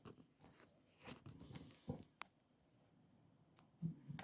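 Near silence broken by faint scattered rustles and a few light clicks, with one sharper click about halfway and a soft knock near the end.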